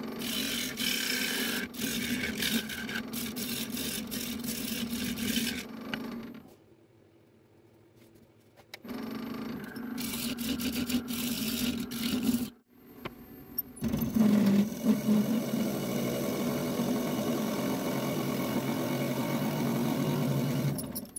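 Wood lathe spinning a pine bowl while a turning tool cuts into it: a steady hum under a scratchy, hissing scrape. The sound stops twice briefly and then resumes.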